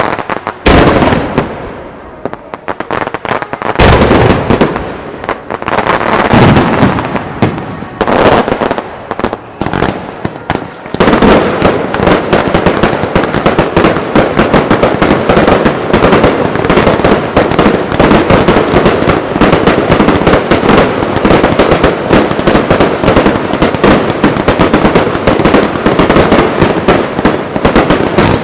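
Fireworks starmine (rapid-fire barrage) display. In the first part, aerial shells burst with single loud booms a couple of seconds apart, each rumbling away. About eleven seconds in, the finale barrage starts: a dense, unbroken stream of rapid bangs and crackles.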